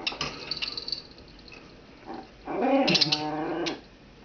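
Puppy giving a low growling whine lasting about a second, starting about two and a half seconds in, after some light sharp ticks.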